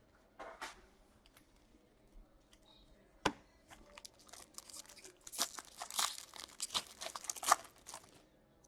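A foil trading-card pack being torn open and its wrapper crinkled. There is a sharp tap about three seconds in, then a run of crackling tearing from about five seconds in.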